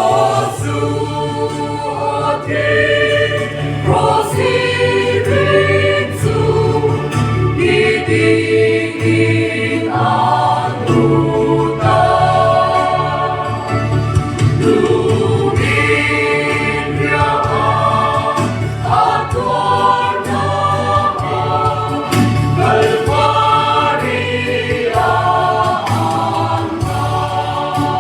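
Background music: a choir singing a gospel song over a steady low accompaniment.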